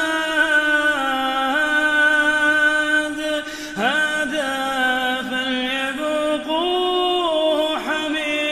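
A male reciter chanting the Quran in melodic tajweed style, holding long drawn-out notes that step between pitches, with a quick upward glide about four seconds in.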